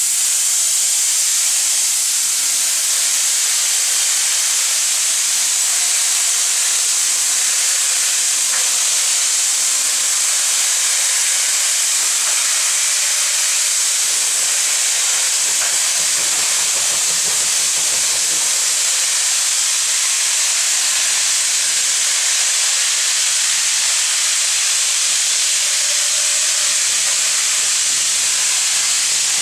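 Steady loud hiss of escaping steam from a rebuilt Bulleid Battle of Britain class steam locomotive and its train pulling away, with a low rumble added about halfway through as the coaches roll past.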